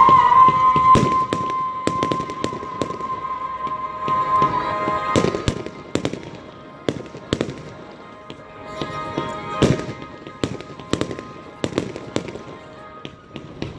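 Fireworks bursting with sharp bangs and crackles every second or so, over music with a long held note near the start.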